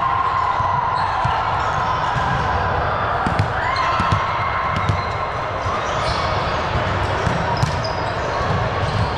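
Indoor ball game on a gym court: ball hits and thuds now and then over a steady murmur of players' voices.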